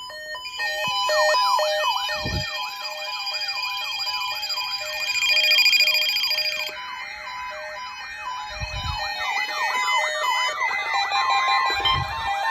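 Electronic siren sweeping rapidly up and down, about three sweeps a second, over layered steady electronic tones, with three short low thumps.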